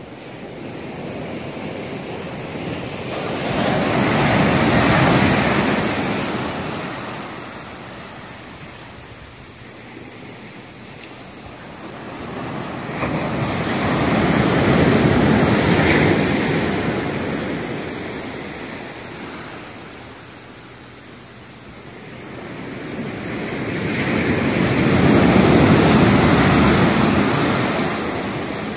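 Rough ocean surf breaking and washing up a sandy beach. Three waves each swell to a loud rush and fade back, about ten seconds apart.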